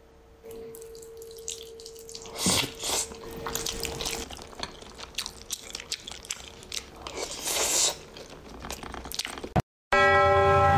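Irregular dripping and splashing of water with small clicks and knocks. It cuts off near the end, where music with bell-like tones begins.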